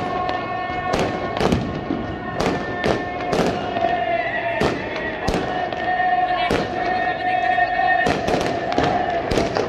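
Fireworks going off overhead: a dozen or so sharp bangs at irregular intervals, over steady held notes of music.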